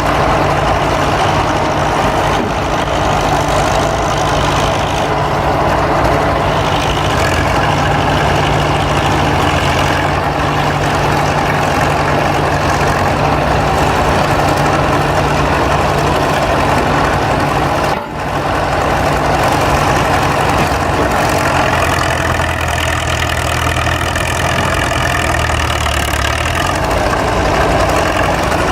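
Heavy engine of an antique construction machine running steadily at idle. The sound drops out for an instant about two-thirds of the way through, and the engine note shifts a little near the end.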